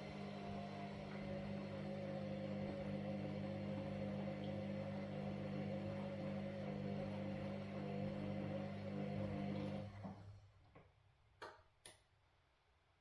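Washing machine running with a steady hum and a wavering whine as the drum turns, stopping about ten seconds in; two short clicks follow in the near-silent pause.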